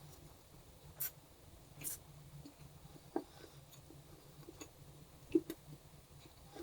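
Someone eating on a mukbang: a few short, crisp crunches about one and two seconds in, then scattered soft clicks and taps, with a low steady hum underneath.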